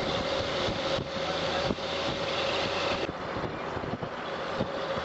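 Road and wind noise from a moving vehicle, with a steady hum running underneath and a few knocks. The rushing noise softens about three seconds in.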